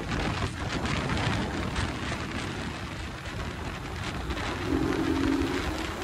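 Wind rushing over the microphone with road noise as a 150 cc motorcycle rolls along with the throttle eased. The engine's steady hum comes back faintly about five seconds in.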